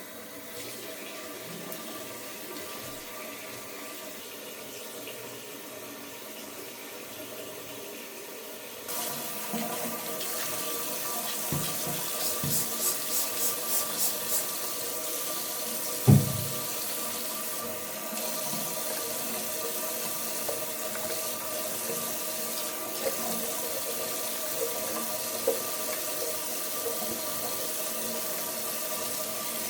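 Tap water running into a bathroom sink, becoming louder about a third of the way in as the flow strengthens. A quick run of short strokes follows, then a single sharp knock about halfway, with a few lighter clicks later.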